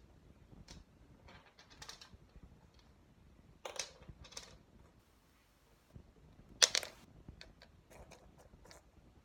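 Irregular light clicks and rustles of small things being handled, with two louder bursts, the loudest about two-thirds of the way through.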